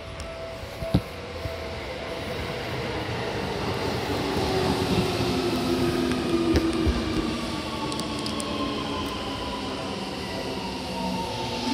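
Seibu 6000 series electric train's Hitachi GTO-thyristor inverter and traction motors whining under way, over the rumble of the car, with several pitched tones gliding slowly downward. A sharp knock about a second in.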